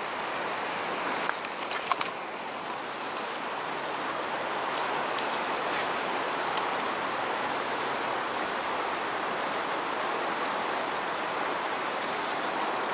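A river rushing steadily, with a few sharp clicks about one to two seconds in.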